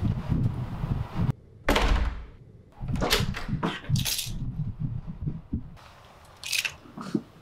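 A heavy wooden door thudding shut about two seconds in, followed by a string of short clicks, knocks and jangles from its latch and keys, with two more brief clicks near the end.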